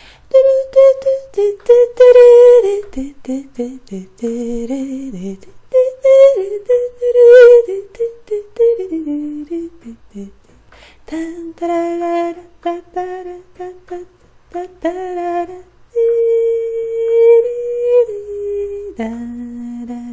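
A woman humming a wordless melody unaccompanied, one voice moving in short phrases, with a long held note about two-thirds of the way through and a drop to a lower note near the end.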